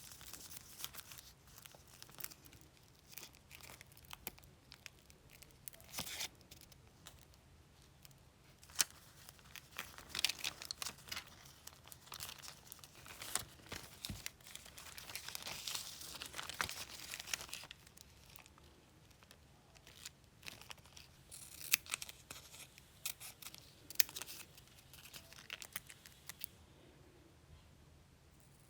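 Close-up crinkling and tearing rustles with many small sharp clicks and taps, coming in busier spells, as of small materials being handled and peeled.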